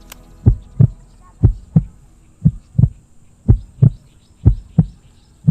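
Heartbeat sound effect: paired low thumps in a steady lub-dub rhythm, about one pair a second, with a single sharp click just after the start.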